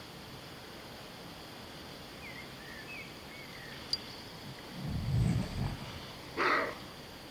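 A deep call from an unidentified animal, about a second long, then a short, higher call soon after; a few faint chirps and a sharp click come before it.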